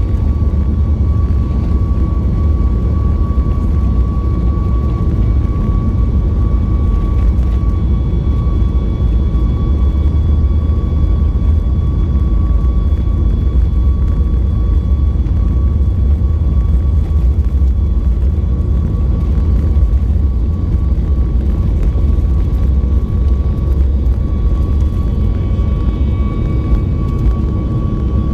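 Cabin noise of a Boeing 737 MAX 8 taxiing: a steady low rumble with a thin, steady high whine over it.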